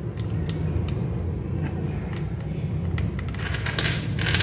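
Plastic XDA-profile keycaps clicking lightly as they are handled, a few separate clicks, with a short rustle near the end, over a steady low hum.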